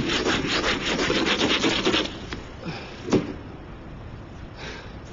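Rapid rasping, scraping strokes for about two seconds, then a single sharp knock about three seconds in.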